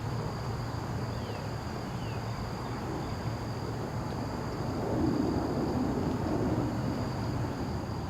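Outdoor ambience: a steady low rumble with a thin, high, steady tone above it, growing a little louder a few seconds past the middle.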